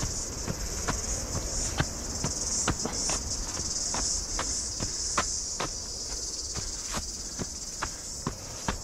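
A steady, high-pitched insect chorus from the scrub, with the runner's footsteps striking a dirt trail about two to three times a second.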